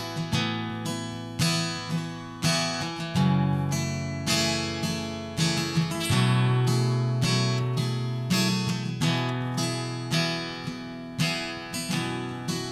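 Capoed acoustic guitar strummed in a slow, steady rhythm, played solo, the chord changing every few seconds.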